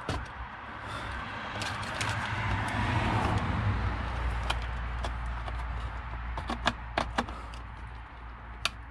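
A vehicle going by, its noise swelling and then fading, over a steady low hum, with scattered light clicks and knocks from parts being handled.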